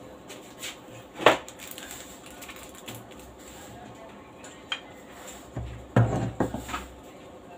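Tableware being handled: a metal spoon clinking and scraping in an opened tin sardine can, with a ceramic bowl set down. One sharp clack a little over a second in, then a cluster of knocks and scrapes near the end.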